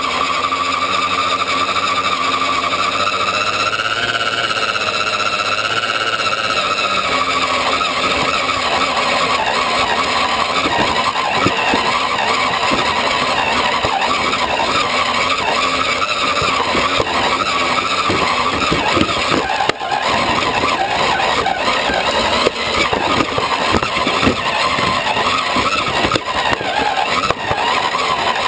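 Electric motor and gear drive of a scale RC Land Rover Defender 90 crawler whining as it drives, the whine rising in pitch a few seconds in and then falling back. Later the truck rattles and knocks repeatedly as it crawls over rocks, heard from inside its cab.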